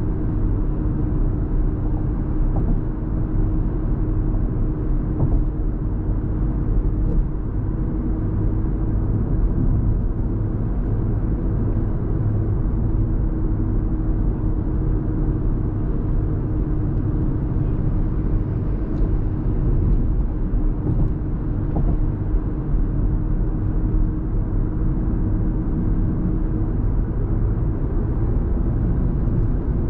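A car driving at steady speed, heard from inside the cabin: an even rumble of tyre, road and engine noise. A steady hum runs over it and stops near the end.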